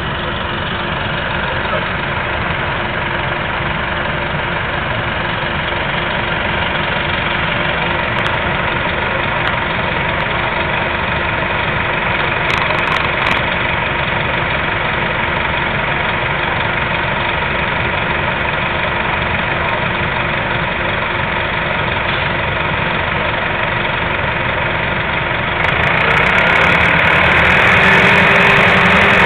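Nova Bus RTS transit bus engine running steadily at idle, growing louder near the end.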